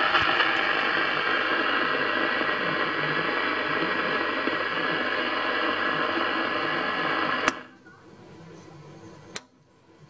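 Zodiac B-5024 CB radio's speaker giving out steady receiver static hiss, cut off abruptly by a sharp click of a front-panel switch about three-quarters of the way in. A second sharp click follows near the end.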